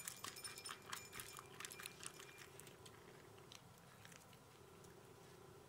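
Miniature Pinscher puppy gobbling dry kibble from a bowl: rapid, faint crunching and clicking of kibble, dense at first and thinning out after about two and a half seconds.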